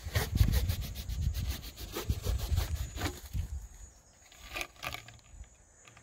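Scraping and rustling as a Cape cobra is tipped out of a release tube onto dry grass and gravelly ground: a dense run of crackles in the first second and a half, then scattered ones for a few seconds more.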